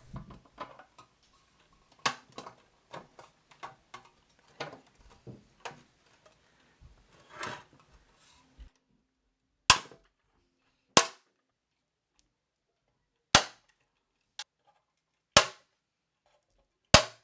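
Parts of a toy dump truck clicking and knocking together during reassembly: a scatter of light taps and clicks, then six sharp, separate clicks a second or two apart.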